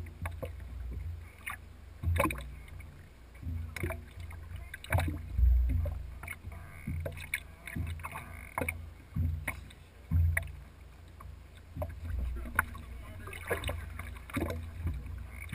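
Water slapping and sloshing against the side of a fishing boat, with irregular low thumps and scattered knocks and splashes while a large bighead carp is worked into a landing net alongside.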